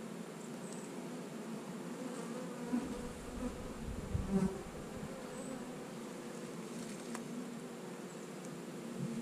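Honey bees buzzing in a steady hum around an opened hive as a frame of comb is worked, with a few low bumps about three to four and a half seconds in.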